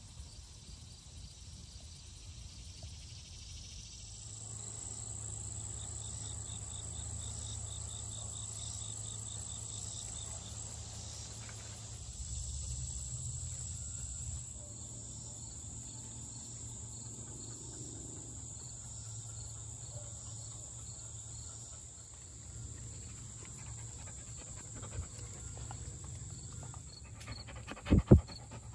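Insects droning steadily at a high pitch in a summer garden, with faint repeated chirps beneath. Just before the end, a short, very loud burst of close noise as a dog pushes its face right up to the microphone.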